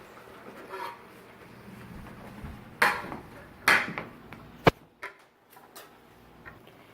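Kitchen clatter from cookware and utensils: a couple of short knocks or scrapes, then one sharp clink about two thirds of the way through.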